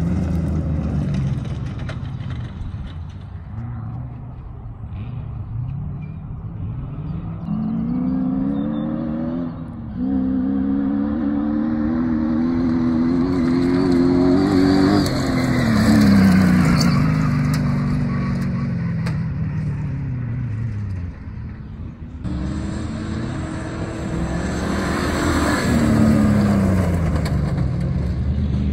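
Comp safari off-road race vehicles' engines revving hard as they drive past. The pitch climbs up through the revs and falls away several times, with abrupt changes about a third and three quarters of the way in.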